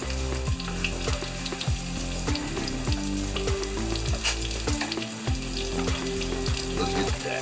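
Background music with a steady beat of about two thumps a second and held bass and mid notes, over a constant crackling hiss like sizzling.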